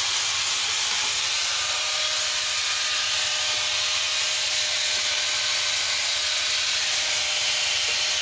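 A steady, even hiss, with a faint steady tone under it.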